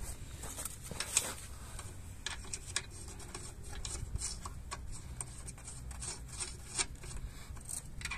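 Lug nuts being turned by hand onto wheel studs, with small metal-on-metal scrapes and clicks throughout and two sharper clicks along the way.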